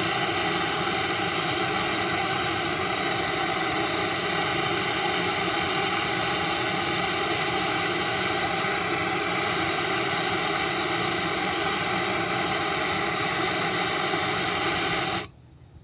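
Handheld gas torch burning with a steady hiss while heating a copper pipe fitting for soldering; the flame is shut off suddenly near the end.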